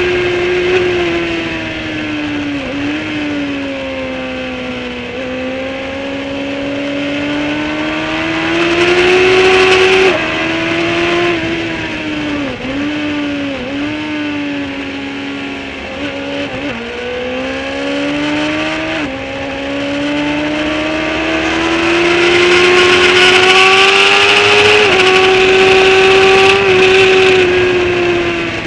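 Sport motorcycle engine under hard track riding. Its note climbs under throttle and drops sharply at each upshift, with a few quick dips where it is shifted down. Wind rushes loudest at top speed, near the end.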